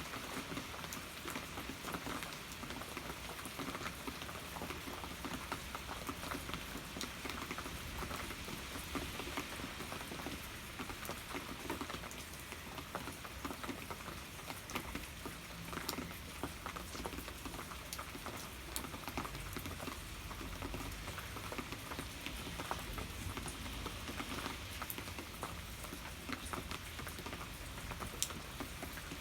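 Steady rain: an even hiss of falling rain with many small, distinct drop ticks scattered throughout.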